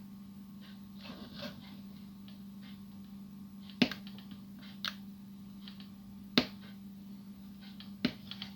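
Sharp clicks and taps of small plastic parts and tools being handled on a workbench, the loudest near the end, with a little scratching about a second in, over a steady low hum.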